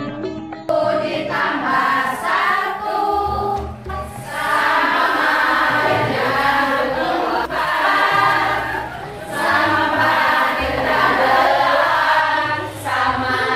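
A group of voices singing a song together, choir-like, in phrases with short breaths between them; it starts about a second in.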